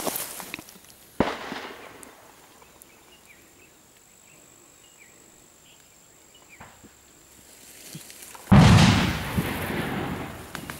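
Gunfire in a firefight: a sharp shot about a second in, a fainter one near seven seconds, then a much louder, deeper boom about eight and a half seconds in that echoes for over a second.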